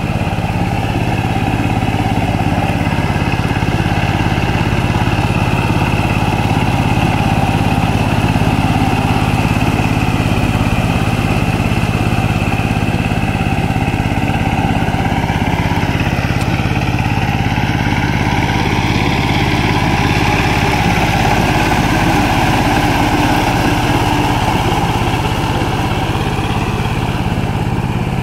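12-horsepower Saifing single-cylinder diesel engine on a two-wheel power tiller running steadily under load, pulling through a flooded, muddy paddy field on rubber wheels; its pitch shifts a little about halfway through.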